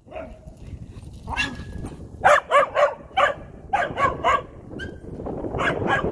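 Dogs playing rough and barking: a quick run of about seven short, sharp barks in the middle, followed by a rougher, noisier stretch of play sounds near the end.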